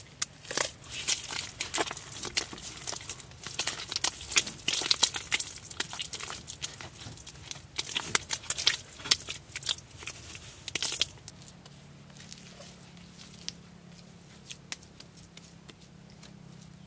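Bare hands slapping, pressing and smearing wet mortar, making quick wet slaps and scrapes. They come thick and loud for about the first eleven seconds, then thin out to a few faint ones.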